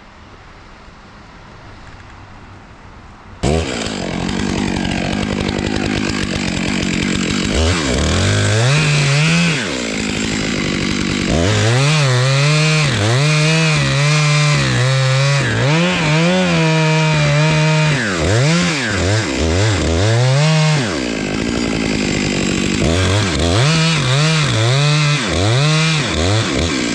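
Chainsaw starting up about three and a half seconds in, then revved and cutting into a big maple trunk for the back cut, its engine note repeatedly dipping under load and rising again, with a brief easing off about two-thirds of the way through.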